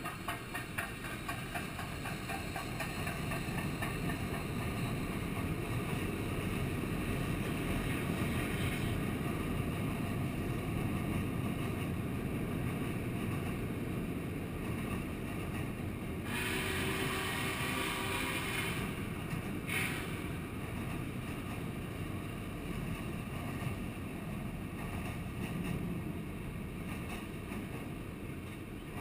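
Steam-hauled passenger train rolling across a steel truss railway bridge: a steady rumble of wheels and cars, with rhythmic clicking in the first few seconds. About sixteen seconds in, a louder hissing burst lasts about three seconds, followed by a shorter one.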